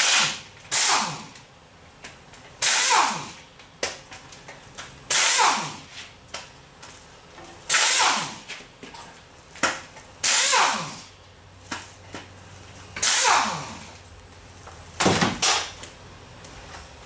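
Pneumatic impact wrench with a 9/16 socket spinning out bolts on a TH400 transmission case, about seven short bursts, each winding down in pitch as the tool coasts to a stop.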